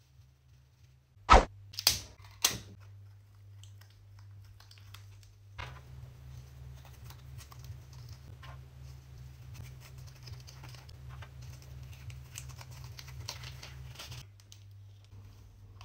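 Three sharp knocks about a second and a half in, then several seconds of continuous crackling and small clicks as a rubber balloon filled with baking soda is handled and twisted at the neck.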